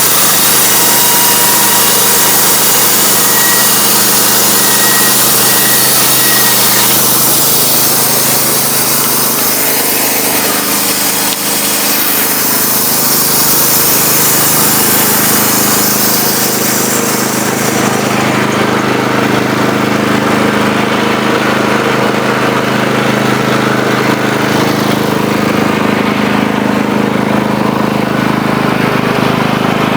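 Wood-Mizer band sawmill running, its blade cutting through a board to trim off the live edge over the steady drone of the mill's engine. A little past halfway the hiss of the cut drops away and the engine runs on alone.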